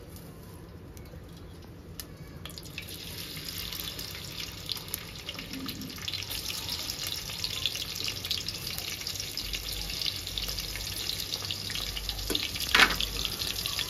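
Chopped onions and green chillies sizzling and crackling in hot oil, starting a couple of seconds in and growing louder. A sharp knock comes near the end.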